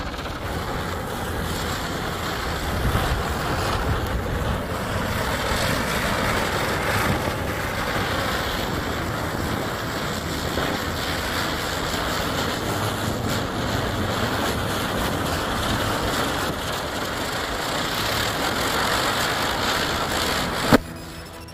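Big-size ground chakkar (ground spinner firecracker) spinning and burning with a steady fizzing hiss. A single sharp crack comes near the end, after which the hiss drops away.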